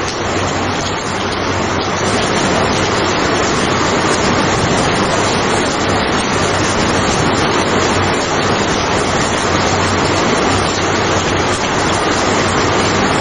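Rain falling steadily, an even hiss with no thunder claps.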